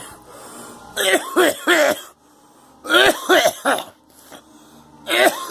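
A person coughing in fits from smoking sage mixed with rolling tobacco: three harsh coughs about a second in, three more about three seconds in, and another fit starting near the end, each cough dropping in pitch.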